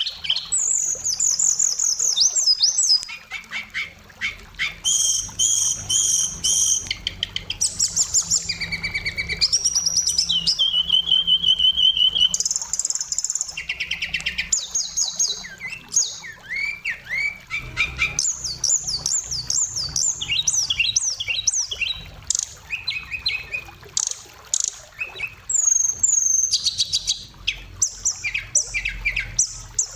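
Oriental magpie-robin singing a varied song of clear whistles, fast trills and quickly repeated notes, one phrase after another with brief gaps.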